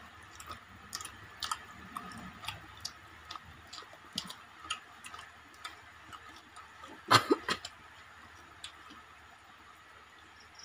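Eating noises: scattered soft clicks and smacks of people eating rice and fish curry with their hands, with a brief louder burst of noise about seven seconds in.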